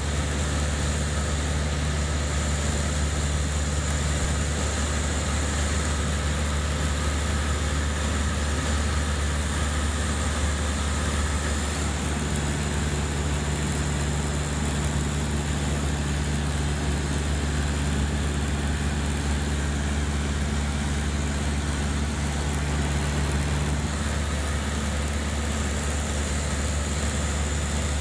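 Cessna 152's four-cylinder Lycoming engine and propeller droning steadily in flight, heard from inside the cabin with a constant rush of air noise.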